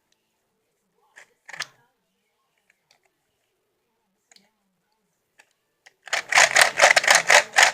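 Large Meffert's Gear Cube puzzle being turned quickly: a fast run of plastic gear clacks, about five or six a second, starting near the end after a few soft clicks. It is a little loud.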